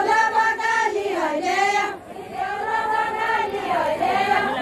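Women singing a Deuda folk song together in long drawn-out notes, with a short break for breath about two seconds in.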